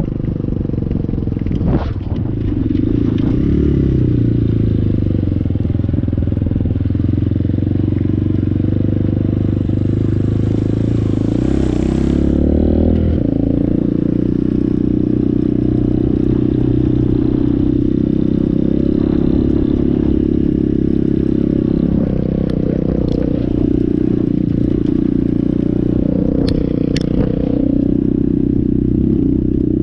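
Dirt bike engine, a 2019 Apollo 250RX's 250 cc single-cylinder, running steadily as the bike is ridden, its pitch rising and falling with the throttle several times. A few sharp clatters and knocks come in the last third.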